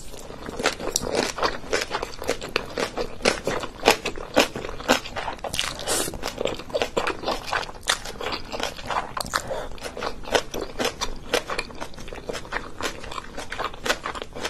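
Close-miked mouth sounds of a person eating a mouthful of sauced instant noodles: a slurp at the start, then wet chewing smacks and clicks, several a second, irregular.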